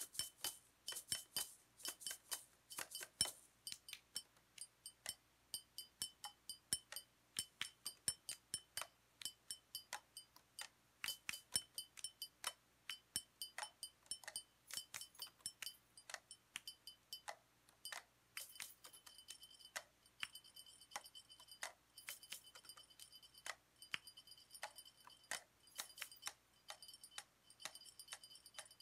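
Small hard objects struck together or tapped, making a quick, uneven run of sharp clinks, with some strikes leaving a short, high ring.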